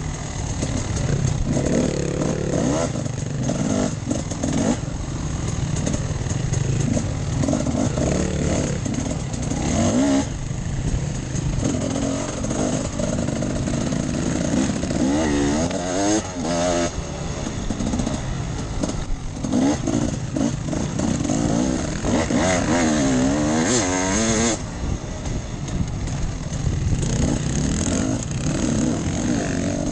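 Off-road enduro motorcycle engine running hard under a rider, its pitch sweeping up and down again and again as the throttle is opened and closed, most plainly about halfway through and again about three quarters of the way in.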